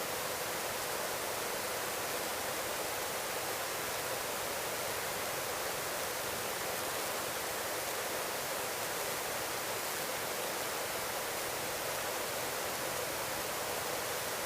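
Steady, even hiss of a helicopter in cruise flight, heard through the cockpit intercom audio with the low end cut away, so no rotor beat comes through.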